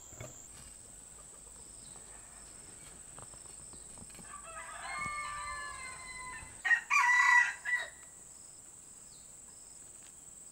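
A rooster crowing twice: a fainter crow about four and a half seconds in, then a louder one about a second later.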